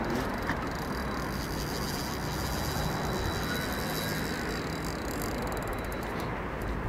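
Steady outdoor background noise: a low rumble with an even hiss over it, without breaks.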